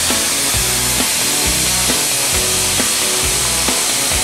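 Background music with a steady beat, a little over two beats a second, over a steady high hiss.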